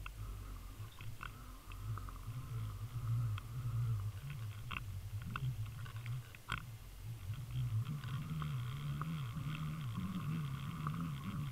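Muffled underwater sound from a camera being pulled through the water on a fishing line: a low, wavering rumble with scattered sharp ticks.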